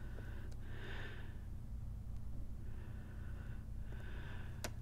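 A person breathing slowly and audibly close to the microphone, four or five soft breaths, over a low steady hum, with a single sharp click near the end.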